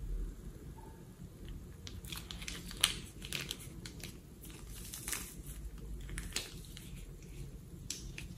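Plastic piping bag crinkling as it is squeezed and crumpled by hand, a string of small crackles with a sharper one about three seconds in.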